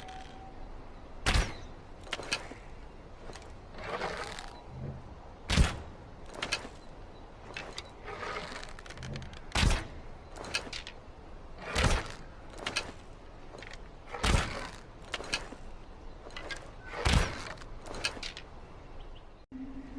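Longbow being shot again and again: about six sharp, loud snaps a few seconds apart, each followed under a second later by a softer knock, with quieter rustling handling sounds between shots.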